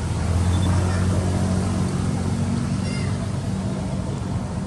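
A motor vehicle engine running steadily: a low hum that eases slightly after about three and a half seconds.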